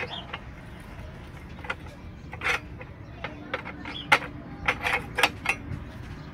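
Steel wire rod and a pipe lever clink and knock against a homemade angle-iron stirrup bender while rebar is bent. There are about seven sharp metallic clinks, spaced irregularly, the loudest about four seconds in.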